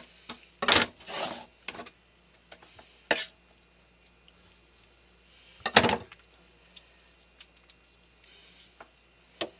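Kitchen knife knocking against a plastic cutting board while squid is cut up: about five separate sharp knocks spread out, the loudest about six seconds in.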